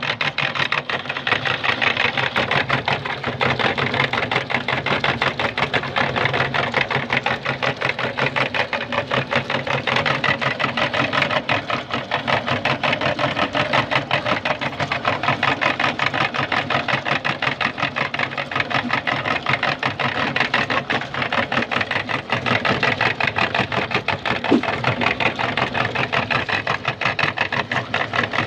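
Electric meat grinder running steadily with a fast motor rattle as it grinds radishes.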